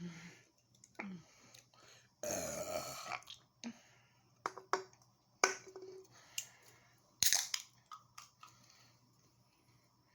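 A man burping after chugging a carbonated energy drink: one long, loud burp about two seconds in, falling in pitch. Several short sharp clicks follow.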